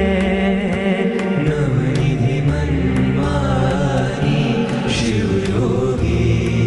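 Hindi devotional bhajan music: a melody of long held, gently bending notes over a low steady drone, with light percussion ticking at a regular pace.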